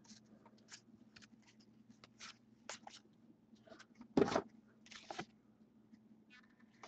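A stack of hockey trading cards handled and flipped through by hand: soft, scattered ticks and swishes of card stock sliding over card, with one louder thump about four seconds in. A faint steady hum lies underneath.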